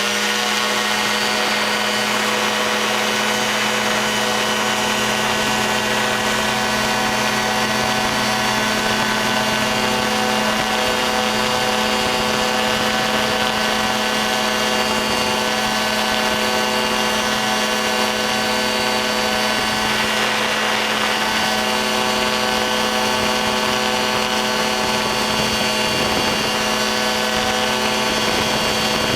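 Ultralight aircraft's engine and propeller running at a steady, unchanging speed: one even drone.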